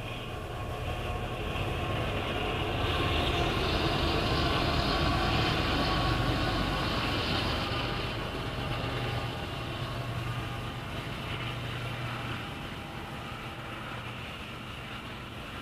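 Freight train passing, led by Union Pacific and CSX diesel locomotives. It grows louder over the first few seconds as the locomotives go by, then settles into the steady rumble of a long line of tank cars rolling past.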